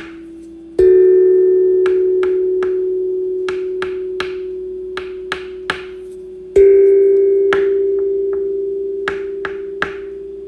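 A bell-like ringing tone, struck twice about six seconds apart, each strike fading slowly. Over it run short, sharp clicks or taps, about two a second, unevenly spaced.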